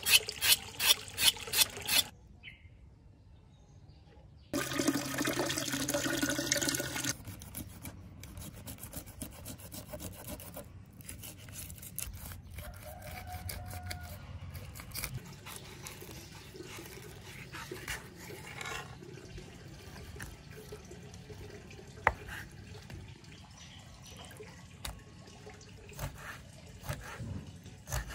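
Food-preparation sounds: a quick run of sharp knife strokes, then a few seconds of running, splashing water, then a long stretch of quieter knife work on a wooden cutting board as a fish is filleted and sliced, with scattered small taps of the blade on the board.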